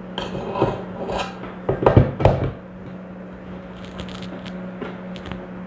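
Stainless steel mixing bowl clunking and scraping against the plastic base of a stand mixer as it is set down and seated, the loudest knocks about two seconds in, then a few light clicks of handling. A steady low hum runs underneath.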